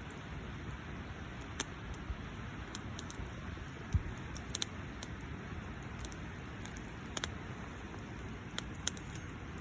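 Wood campfire burning: a steady hiss with irregular sharp crackles and pops, a dozen or so, the strongest about four seconds in.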